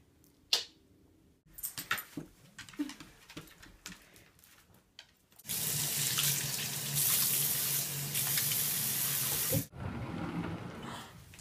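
Water running from a tap into a stainless-steel bathroom sink as hands are washed under the stream; the steady rush starts about halfway through and stops abruptly. A few short knocks and rustles come before it.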